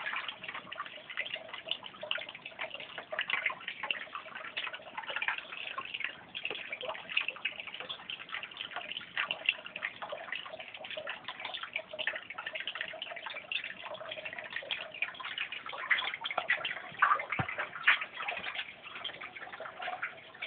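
Water running and trickling through a house's main sewer drain pipe, a continuous irregular patter of small drips and splashes. The owner takes it for water coming in from the sewer and flooding the basement.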